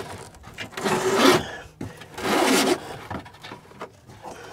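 Wires and hands rubbing and scraping against the trunk panel and top-well trim, in two short spells.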